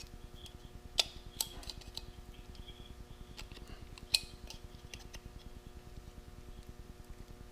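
Small metal clicks and light scraping as pliers and a screwdriver work the thin sheet-metal lip of a chainsaw muffler. There are sharp clicks about a second in, again just after, and once more around four seconds.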